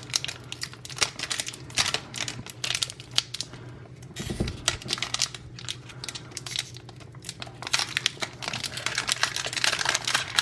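Foil Pokémon TCG booster pack wrapper crinkling as it is handled and opened, a dense run of crackles, with a dull thump about four seconds in.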